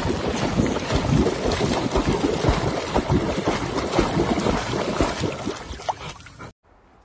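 Water splashing and churning as a dog paddles hard through a lake, a dense run of irregular splashes that cuts off abruptly near the end.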